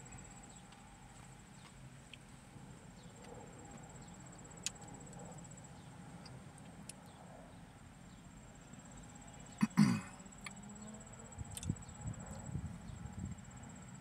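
Insects chirring steadily at a high pitch in the background, with faint chewing and mouth sounds from a man eating a bird's eye chili pepper. About ten seconds in, a brief vocal sound from the eater is the loudest thing.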